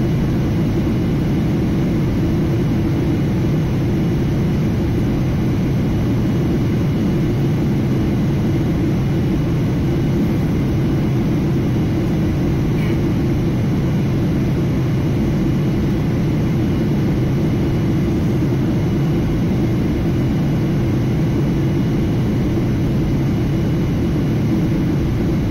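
Steady cabin noise inside a Boeing 737-800 in flight: an even low rumble of airflow and its CFM56-7B jet engines, heard from a window seat over the wing.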